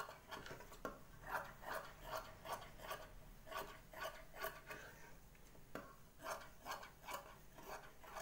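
Tailor's scissors cutting through cloth: a steady run of short snips, about two or three a second, with a brief pause a little past the middle.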